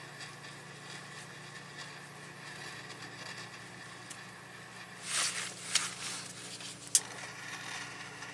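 Faint steady low hum, with two short rustling sounds a little past halfway and a single sharp click near the end, from hands handling the wiring and tools.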